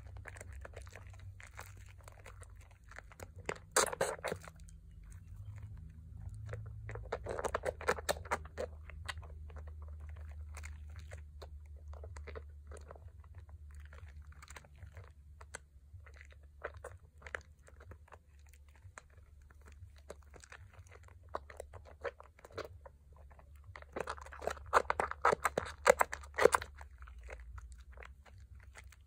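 Lathered hands squeezing and kneading thick Pears soap foam over a bowl of soapy water: wet squishing with fine crackling of bursting bubbles. It is louder in bursts about four seconds in, around eight seconds, and again from about 24 to 27 seconds.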